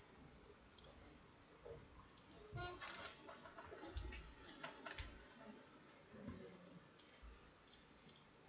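Faint, scattered clicks from a computer mouse and keyboard, irregular and a second or so apart.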